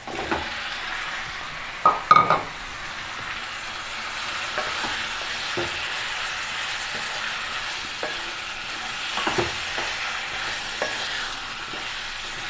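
Raw chicken pieces sizzling as they go into the hot pan of fried onion and ginger-garlic paste, then frying steadily while being stirred, with a few sharp knocks of the spoon against the pan, the loudest about two seconds in.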